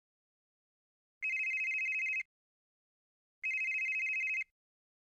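Mobile phone ringing with an incoming call: two rings, each a high, fast-warbling electronic trill lasting about a second, with about a second of silence between them.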